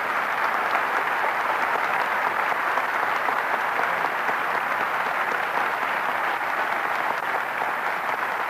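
An audience applauding steadily, welcoming a lecturer to the podium after his introduction.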